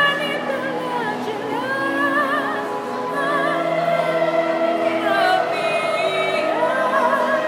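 A woman gondolier singing solo in full voice, holding long notes with a wide vibrato.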